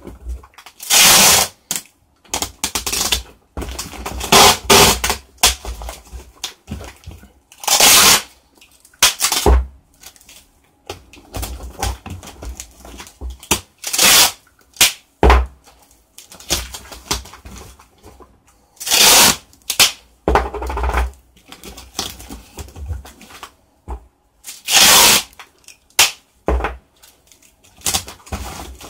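Packing tape pulled off the roll again and again in loud rasping strips, about eight pulls, with rustling as it is smoothed onto a cardboard box and a few dull thumps on the box.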